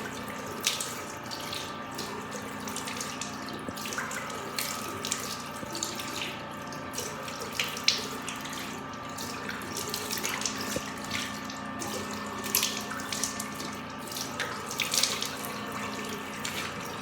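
Water running from a tap into a sink, with irregular splashes as water is scooped up to rinse a face treatment off the skin.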